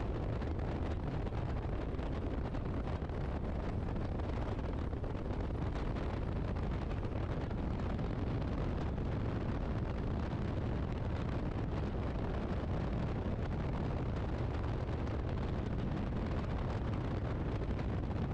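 Engine and propeller of a 1929-design open-cockpit biplane running steadily with a low rumble, mixed with wind noise on the microphone as the plane moves across a grass field.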